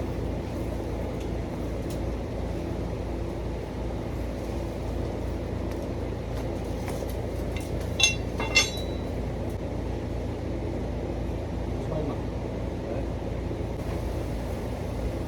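A steady low mechanical hum with a few fixed tones in it. About eight seconds in come two sharp metallic clinks, about half a second apart, with a short ring.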